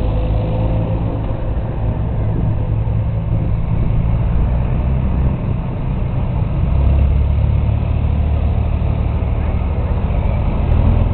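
Tractor engines running, a steady low drone whose pitch shifts about five and a half seconds in.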